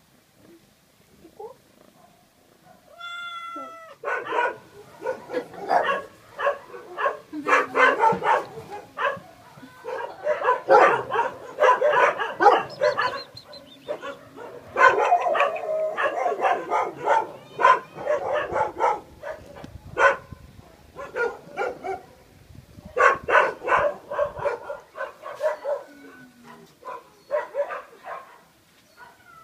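Cats meowing: one long meow about three seconds in, then a dense run of short meows and cries for most of the rest.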